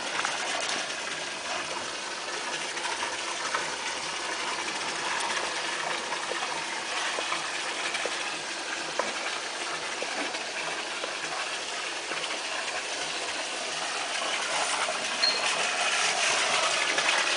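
Water pouring from a spout into a stone fountain basin, a steady splashing that grows louder near the end.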